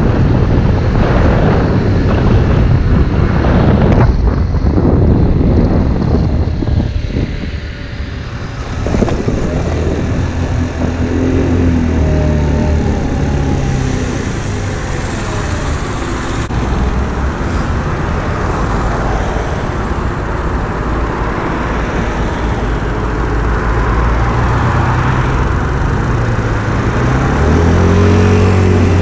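AJS Fire Fox 50cc moped engine, first under way with heavy wind rushing over the microphone, then running at low speed with its pitch rising and falling as the throttle is worked. Near the end the revs climb.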